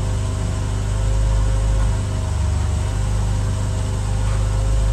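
An engine idling steadily: a constant low hum with a faint steady whine above it.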